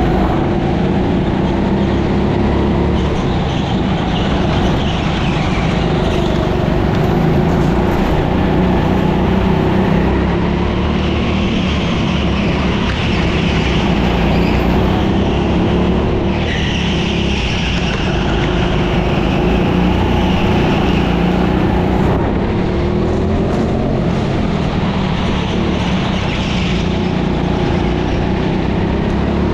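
Go-kart running at race pace, a loud continuous drone that rises and falls a little in pitch through the corners.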